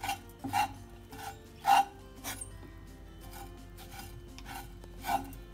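A spatula scrapes and stirs grated coconut, shallots and curry leaves roasting in a pan. There are several short scrapes in the first two seconds, a quieter stretch, then one more scrape near the end.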